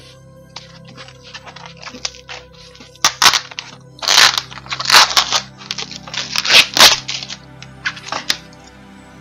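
Foam packing sheet and clear plastic film being pulled apart and peeled off a parcel by hand. Soft crackling at first, then from about three seconds in five loud crinkling, tearing rustles.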